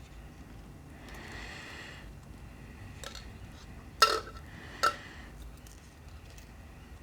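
Two sharp metallic clicks a little under a second apart, the first the louder with a brief ring, from small steel watchmaking tools and parts knocking together during work on a watch mainspring barrel.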